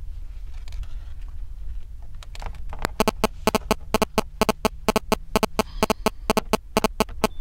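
A rapid series of sharp clicks, about five a second, setting in about two seconds in and running on to the end, over a steady low hum.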